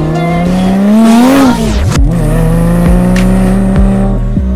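Car engine sound effect revving up, its pitch climbing for over a second, then dropping away quickly like a car passing. It gives way to a steady low drone with a regular thudding beat, the start of the intro music.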